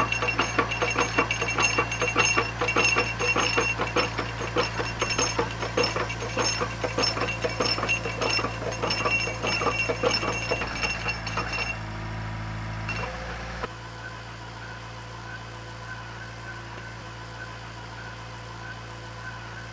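Drilling rig (Lutzkurt KB-20) running with a rapid metallic clinking and rattling over the steady hum of its engine. About twelve seconds in the clatter stops and only a quieter, steady engine hum remains.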